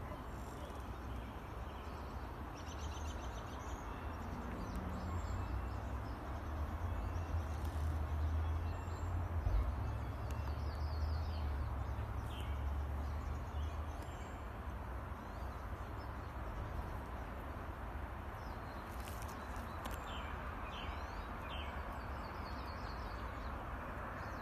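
Outdoor ambience of birds chirping in short, scattered calls over a steady background hiss, with a low rumble that swells for several seconds about a third of the way in.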